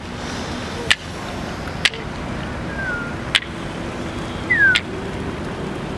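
Four single sharp handclaps spaced irregularly about a second apart, with two short falling chirps between the later ones, over a steady low background rumble.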